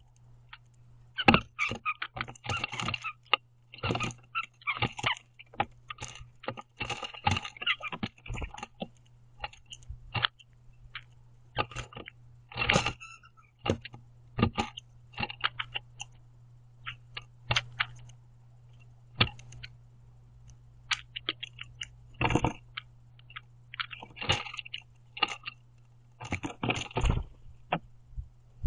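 Blue jays feeding on a wooden platform feeder: irregular clicks, taps and short crunchy clusters as beaks and feet strike the wood and scoop up seed. A low steady hum runs underneath.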